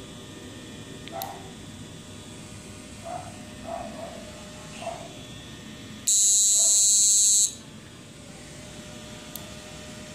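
Two-MOSFET PDC inverter, driven by an SG3525 PWM module set to about 23 kHz, switching on about six seconds in with a loud, high-pitched buzz that lasts about a second and a half and cuts off suddenly. Before it, only a faint background with a few soft short sounds.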